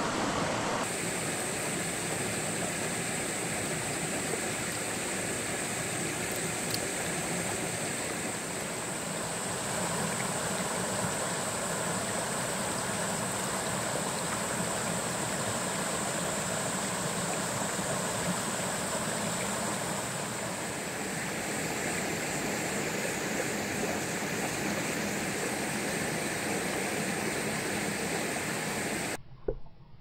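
Shallow mountain stream running over rocks: a steady rush of water, with a steady high-pitched hiss above it. It cuts off suddenly near the end.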